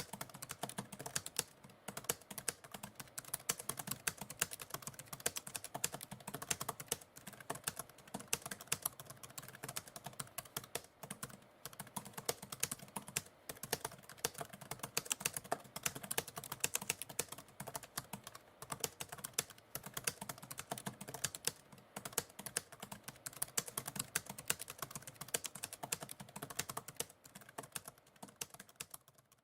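Typewriter keys clacking in a fast, steady run of strikes, with a few brief pauses.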